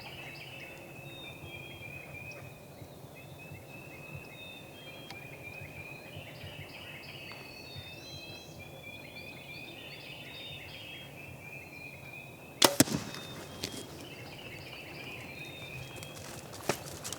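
Songbirds sing in repeated high chirping phrases throughout. About three-quarters of the way in comes a single sharp, loud crack, the sound of a bow being shot at a gobbler, followed by a few smaller knocks.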